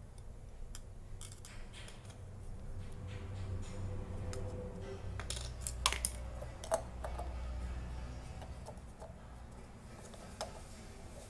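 Scattered light clicks and taps as the rings of a model excavator's swing bearing are handled and fitted together, with a few sharper clicks around the middle, over a low steady hum.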